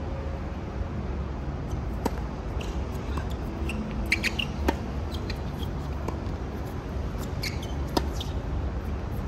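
Tennis ball being played on a hard court: sharp pops of racket strikes and ball bounces, a cluster about four seconds in and the loudest, a serve, about eight seconds in, with short high squeaks of shoes on the court surface. A steady low rumble runs underneath.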